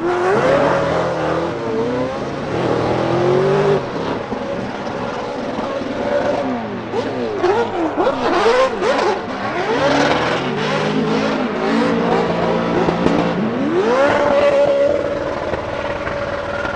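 Drift cars at full throttle. Their engines rev up and down in quick, repeated swings, some pitches rising while others fall, over a constant hiss of spinning tyres. Near the end one engine climbs in a long rise and holds at high revs.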